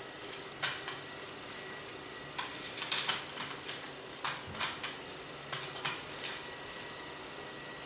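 Light, irregular clicks and taps of a curtain-track connector and its screws being handled and slid along the track, about ten small knocks in all.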